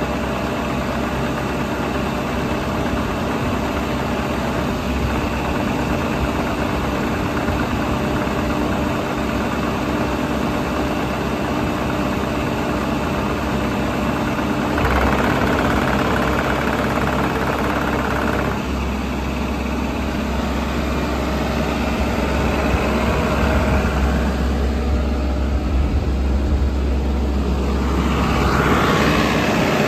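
Diesel engine of a JCB 85Z-2 midi excavator idling steadily. Its sound grows briefly louder in the mid-range for a few seconds about halfway through.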